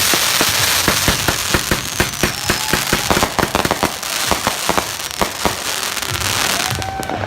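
Fireworks and firecrackers going off in rapid, dense succession: many sharp pops and crackles, several a second, over a steady hiss, with a faint whistle now and then.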